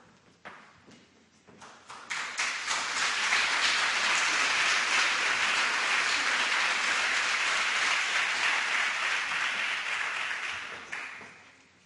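Audience applauding: a few scattered claps, then a full round of applause from about two seconds in that dies away shortly before the end.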